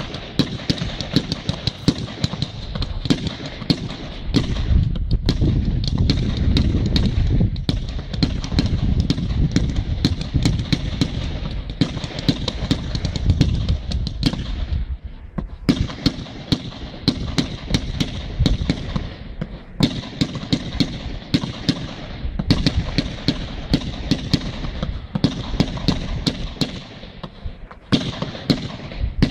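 Professional fireworks display firing a continuous rapid barrage, several sharp reports a second over a rolling rumble of bursts. It eases off briefly about halfway through and again near the end before picking up.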